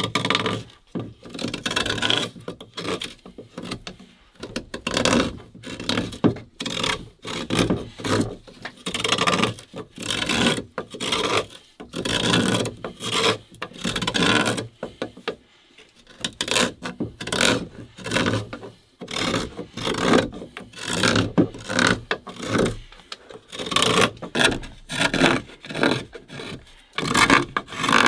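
Knife point scraping and carving a round hole through the wall of a green bamboo tube, in repeated short scraping strokes with brief pauses.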